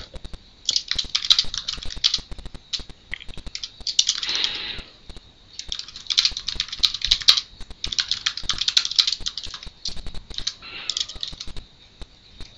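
Computer keyboard typing: runs of rapid keystrokes broken by short pauses.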